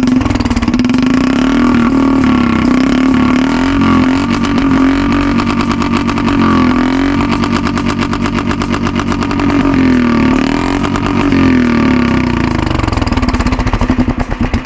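Royal Enfield Bullet's single-cylinder engine running loudly through an exhaust with a homemade amplifying attachment fitted to the silencer, its pulsing note rising and falling several times as the throttle is worked.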